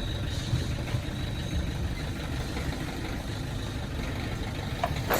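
Car engine idling steadily with a low, even rumble.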